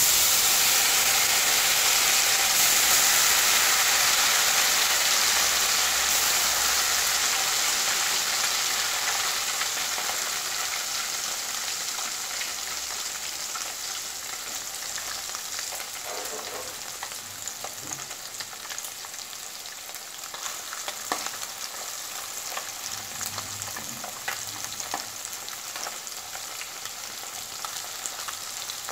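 Tiny kachki fish dropped into hot oil in a non-stick kadai, setting off a loud deep-frying sizzle that starts suddenly and dies down slowly, with scattered pops later on. A spatula stirs the fish near the end.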